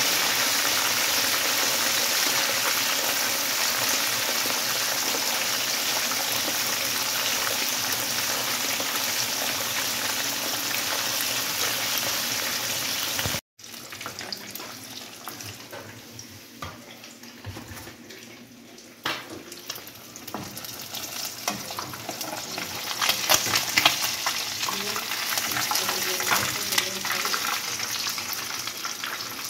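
Whole mojarras frying in hot oil in a pan: a loud, steady sizzle. After a cut about halfway, the sizzle is quieter and broken by scattered clicks and scrapes as a spatula lifts the browned fish.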